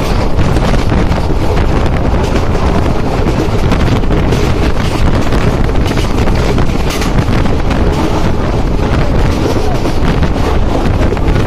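Wind buffeting the microphone at the open window of a moving passenger train, with the train's running noise underneath: a loud, steady rush with irregular gusts.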